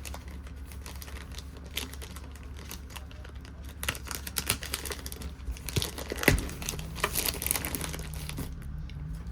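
Packaging paper and tape crinkling and tearing as a parcel is cut and unwrapped by hand, busier in the second half, with one sharp knock about six seconds in. A steady low rumble of heavy construction machinery runs underneath.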